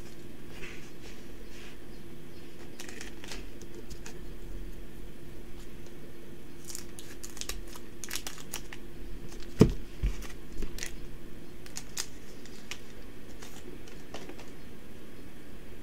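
Crinkling and rustling of a foil trading-card booster pack and plastic card sleeves being handled, with scissors cutting the pack open partway through. A sharp knock about nine and a half seconds in is the loudest sound.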